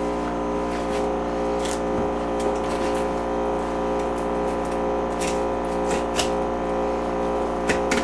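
Steady machine hum made of several fixed tones, with a few faint clicks of the fillet knife working along the striped bass's backbone and rib bones.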